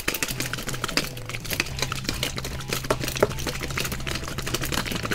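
Small plastic toy-toilet container with water inside being shaken, a fast irregular clatter of clicks as its contents knock against the plastic while the green filling dissolves.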